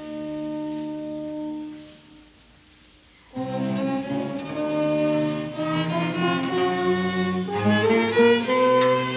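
Bowed string ensemble playing sustained chords: a low held chord dies away about two seconds in, and after a short pause the strings come back in together about three seconds in, then move on through further held chords.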